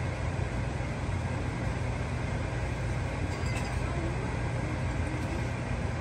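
Steady low rumble and hiss of a kitchen range hood exhaust fan running over pots of evaporating birch sap, with a couple of faint clinks about halfway through.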